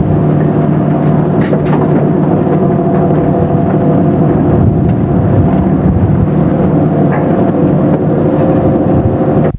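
Fishing boat's engine running steadily, mixed with a constant rush of wind and sea.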